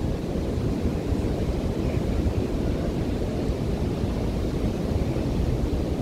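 Ocean surf washing on a beach under a steady, rough rumble of wind buffeting the microphone.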